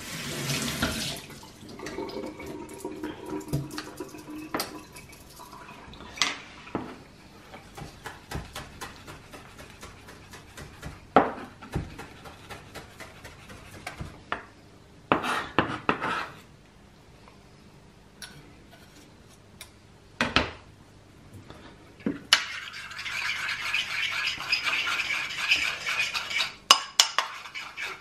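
Kitchen tap running briefly at the start, then a knife chopping fresh parsley on a plastic cutting board in scattered strokes and knocks. From about 22 seconds in, a metal spoon stirs and scrapes continuously around a ceramic bowl of mayonnaise.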